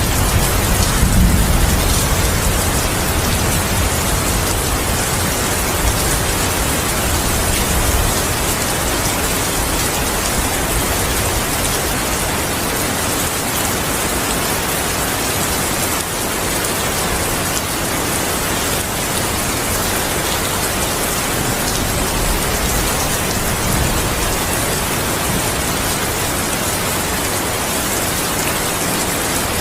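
Steady heavy rainfall hissing across the whole range, with the low rumble of distant thunder dying away over the first several seconds.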